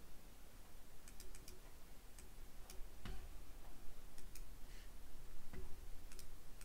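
Computer mouse clicking: scattered light, irregular clicks, with a couple of fuller clicks about three and five and a half seconds in.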